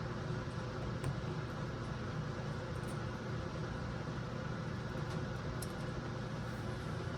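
Steady low background hum with an even hiss, broken only by a faint tick about a second in.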